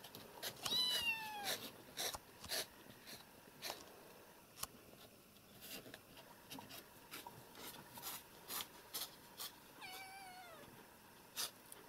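Kitten mewing: two high, falling mews, one about half a second in and one near the end, with scattered faint clicks between them.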